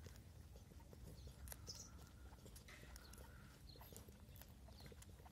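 Puppies suckling at their mother's teats: faint, irregular wet smacking and clicking.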